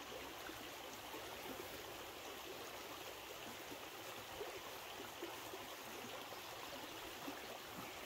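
A small rocky river flowing steadily: a constant wash of water running over stones.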